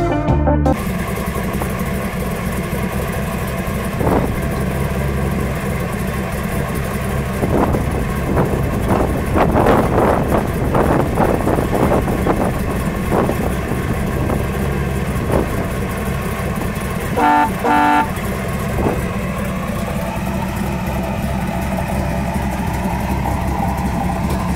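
1932 Ford three-window coupe hot rod's engine idling, with a few short throttle blips in the middle. A car horn toots twice in quick succession about two-thirds of the way through.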